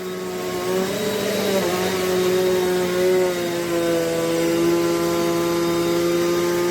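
Eureka NEU10AE5 bagless upright vacuum cleaner running on carpet: a steady motor whine whose pitch shifts slightly a couple of times as it is pushed.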